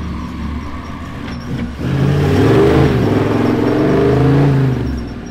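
Toyota LandCruiser 79 series' turbo-diesel engine revving hard as the ute climbs over deep sand moguls. It grows louder about two seconds in as it comes close, with the pitch rising and falling under changing throttle, then eases off near the end.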